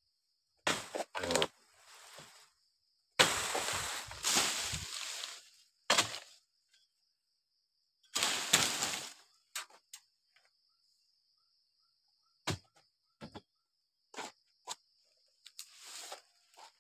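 Dodos harvesting chisel striking the frond bases of an oil palm: sharp chops, several close together near the start and more spread out later. Twice a longer rustling crash as cut fronds fall through the leaves. A steady high insect buzz runs underneath.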